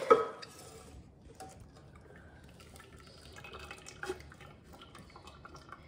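Eggnog custard poured from a stainless saucepan into a fine-mesh strainer, a faint trickle and dripping as it slowly runs through. A sharp knock sounds right at the start.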